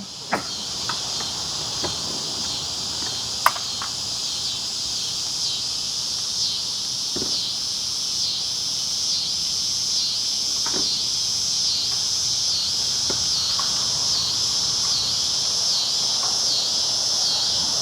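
Steady insect chorus, a high chirring that pulses a little more than once a second. A few faint clicks and taps sound over it, the sharpest about three and a half seconds in.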